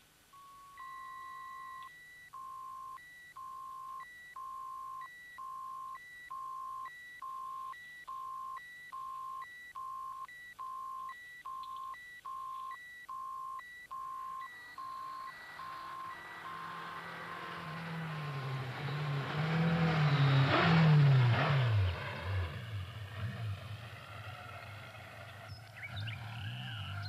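A high electronic beep repeats about one and a half times a second, then fades out about 15 seconds in. Meanwhile a vehicle engine rumble builds to a loud pass-by whose pitch drops around 21 seconds in, then settles into a lower steady rumble.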